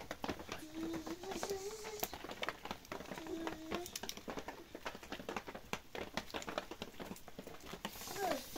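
A child's faint voice making a few short drawn-out sounds, over irregular light tapping and clicking.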